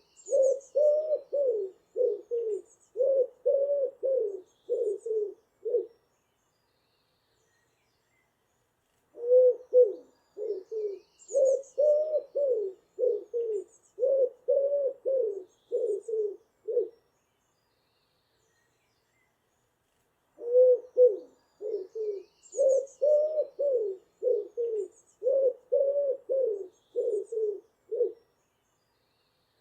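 Pigeon cooing: three runs of rapid, low, wavering coos, each several seconds long, with a few seconds of silence between them. Faint high chirps from another bird sound over the start of each run.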